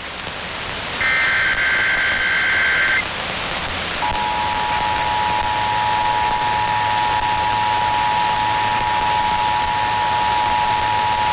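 Emergency Alert System monthly test tones over a steady hiss. First comes a two-second burst of warbling SAME header data tones. About four seconds in, the steady two-tone EAS attention signal begins and holds without a break.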